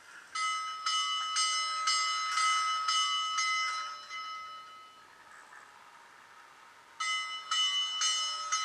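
Steam locomotive bell played by the sound decoder of a Rivarossi H0 Union Pacific Big Boy model as it is started up: a bell struck about twice a second for around four seconds, stopping, then ringing again about seven seconds in.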